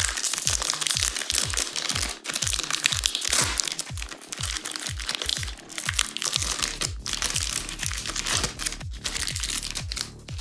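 A foil trading-card packet crinkling and tearing as it is ripped open by hand, then the cards sliding out. Under it runs electronic dance music with a kick drum about twice a second and, from about two thirds in, a steady bass note.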